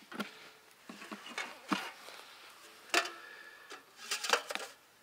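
Short plastic clicks and knocks as charger plugs are pushed into the ports of a Bluetti EB3A portable power station and the unit is handled. There are about half a dozen scattered clicks, and the sharpest comes about three seconds in.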